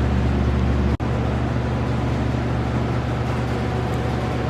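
Steady low machine hum with a faint hiss, like a shop fan or other running appliance, broken by a brief gap about a second in.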